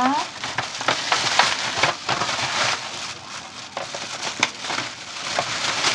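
Plastic bag crinkling and rustling as it is handled, with many sharp little crackles.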